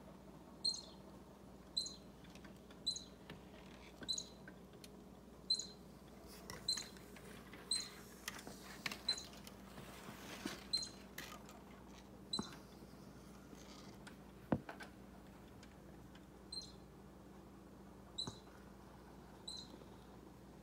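Baby squirrel squeaking, short high squeaks about once a second that pause for a few seconds after the middle, the tempo the cat's tail twitches to. A single sharp knock about two-thirds of the way through and a few faint clicks.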